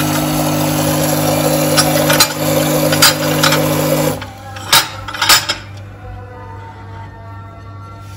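Steady hum of a car running, with several sharp clicks and knocks over it. The hum cuts off abruptly about four seconds in, followed by two louder knocks, and then it is quieter, with faint music.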